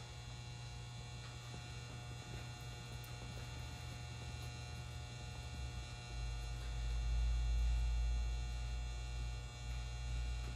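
Steady low electrical hum with many faint steady tones above it. A deeper low rumble swells about six seconds in and eases off about three seconds later.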